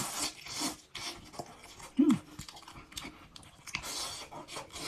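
A person eating braised beef-head meat: wet chewing and lip-smacking with sucking and breathing sounds, and a short hummed "mm" of enjoyment about two seconds in.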